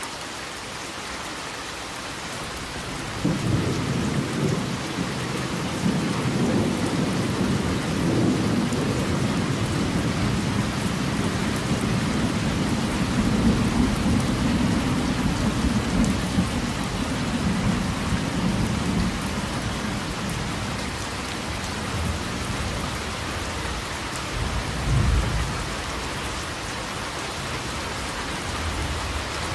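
Steady heavy rain with a long roll of thunder: a deep rumble sets in suddenly about three seconds in, builds and fades over some fifteen seconds, and a shorter low boom follows near the end.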